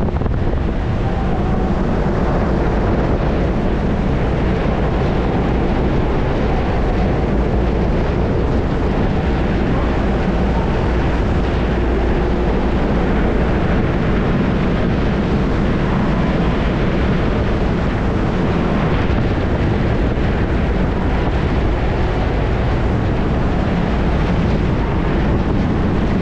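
Steady low rumble of a car ferry's engines while it berths, mixed with wind buffeting the microphone on the open deck.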